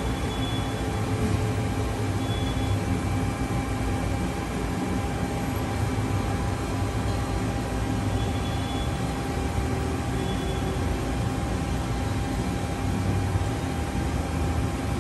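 1995 Mori Seiki ZL-35MC CNC lathe running, its spindle turning the empty chuck, giving a steady machine hum with a few brief high-pitched whines.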